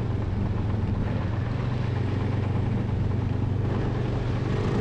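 Snowmobile engine running steadily at low trail speed, heard from the rider's seat over the hiss of the track on snow. A higher engine note comes in near the end.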